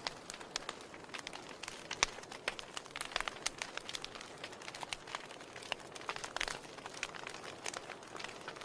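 Wood fire burning in a fireplace: irregular crackles and sharp pops over a soft hiss, with a louder pop about two seconds in.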